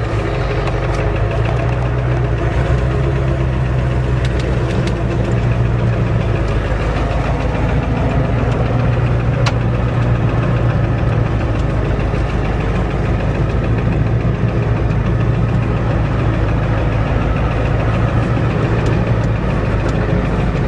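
Ford diesel truck engine running steadily at an even speed, with no exhaust system or muffler fitted.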